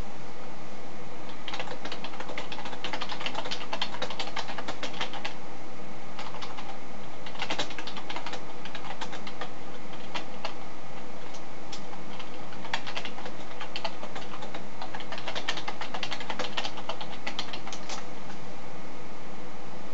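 Typing on a computer keyboard: quick runs of key clicks in several bursts with short pauses between them, over a steady background hum.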